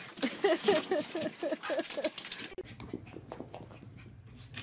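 A dog giving a quick run of about eight short whining cries, each bending up and down in pitch, over the first two seconds. About two and a half seconds in, the sound changes abruptly to a quieter low steady hum with faint clicks.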